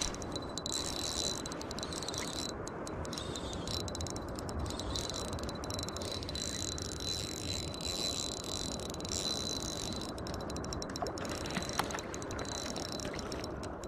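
Fishing reel's drag buzzing as a hooked mandarin fish pulls line off, in several runs broken by short pauses, over a steady low rush.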